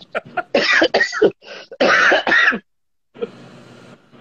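A person coughing and clearing the throat in two loud fits, the first about half a second in and the second about two seconds in, followed by a faint steady hiss.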